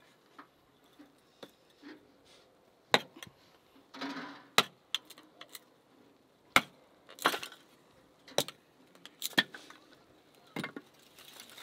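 A hatchet chopping dry wood into kindling: about six sharp, irregular chops a second or two apart, with a couple of short crackles of splitting wood.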